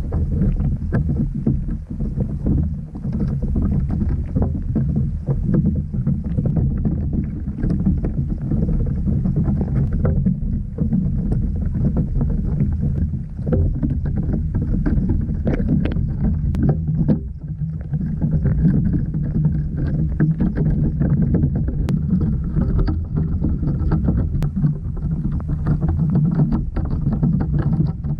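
Underwater noise picked up by a GoPro submerged in a river: a steady low rumble with many small clicks and crackles scattered through it.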